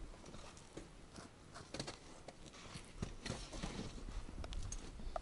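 Irregular clicks, knocks and scrapes of climbing gear and boots on rock, over a low wind rumble on the microphone.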